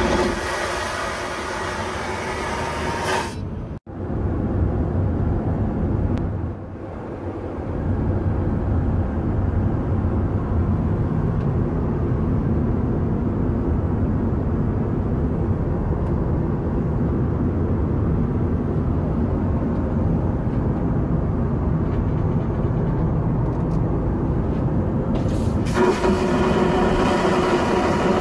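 Airbus A320 vacuum toilet flushing: a loud suction whoosh with a faint whine for about three seconds, pulling the toilet paper down the bowl. A steady low cabin drone follows, and a second vacuum flush starts near the end.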